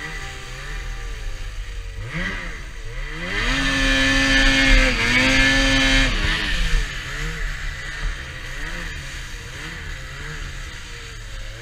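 Lynx BoonDocker 3700 RE snowmobile engine revving up about two seconds in, held at high revs for a few seconds with a brief dip, then easing back to lower revs that rise and fall.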